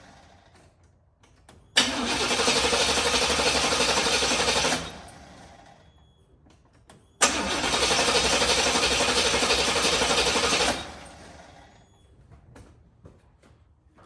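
Box-body Chevy's starter cranking the engine twice, about three seconds each time, with a click as each crank begins; the engine turns over but does not catch. The owner suspects the car is short on gas.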